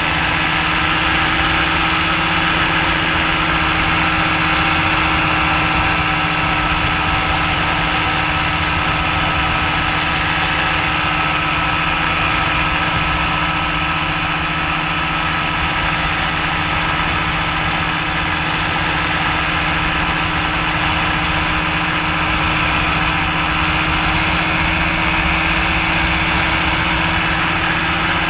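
Powered paraglider's engine and propeller running steadily in flight, a constant drone whose pitch holds level, heard close with rushing air noise.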